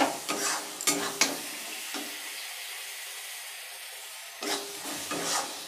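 Spatula scraping and stirring onion-tomato masala in a metal kadhai as it fries and sizzles. The stirring pauses for about two seconds in the middle, leaving only the steady sizzle, then starts again.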